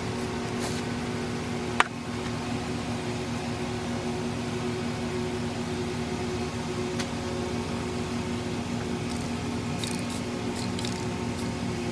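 A few short hisses from a Rust-Oleum camouflage spray-paint can near the end, over a steady droning hum, with a single sharp click about two seconds in.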